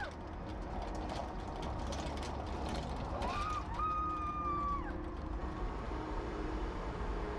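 A woman's long high-pitched whoop about three seconds in, rising at the start and falling away at the end. It sits over a low vehicle rumble and light rapid clicking.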